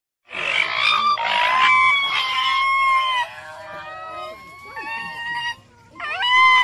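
Common raccoon dogs giving high-pitched whining, mewing calls, several overlapping and some harsh and raspy. The calls start about a quarter second in, die down past the middle, and pick up loudly again near the end.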